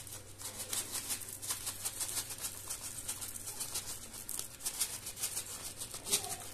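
Chocolate sprinkles rattling in a shaker container as they are shaken out over a cake: a fast, uneven rattle of small hits, loudest near the end.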